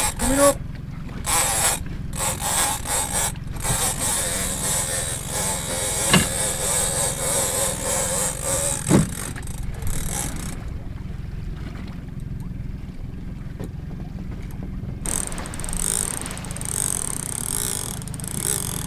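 Big-game lever-drag fishing reel working under the load of a hooked bluefin tuna: a mechanical whirring and clicking in spells, short bursts at first, then longer steady runs about four seconds in and again near the end.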